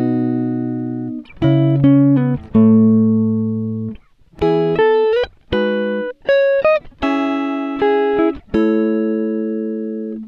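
Background music: guitar chords plucked one after another, each ringing out and fading, with short gaps between phrases.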